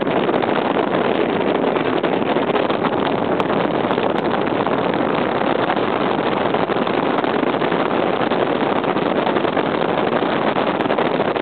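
Steady rushing wind and road noise on the microphone of a camera moving alongside a rider. No pitched motor whine stands out above it.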